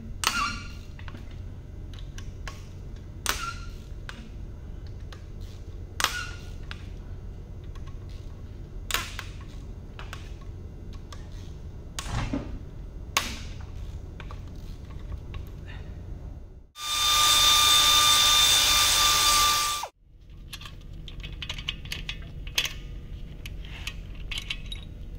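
Wrench and metal parts clicking and clinking on a bare engine block every few seconds as the crankshaft is turned by hand, then a loud whirring burst with a steady whine lasting about three seconds, from a power tool, about two-thirds of the way in.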